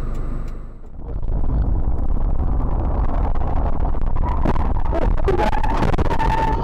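Steady low road and engine rumble of a car, picked up by a dashcam inside the cabin. Over its last couple of seconds, a high wavering tone rises over the rumble as another car cuts in close in front.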